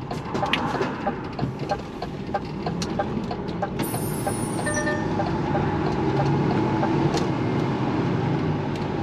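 Inside a lorry cab at low speed: the truck's diesel engine and road noise, with the turn indicator ticking steadily about three times a second as the lorry turns in. A short beep sounds about halfway through.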